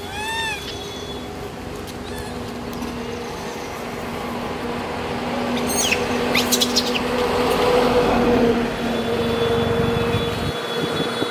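A motor vehicle's engine running close by, with a steady hum that grows louder through the middle and eases a little near the end. A short chirping bird call comes right at the start.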